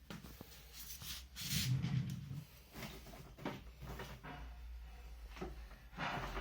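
Irregular knocks and clunks of objects being handled, the loudest a dull thump about a second and a half in.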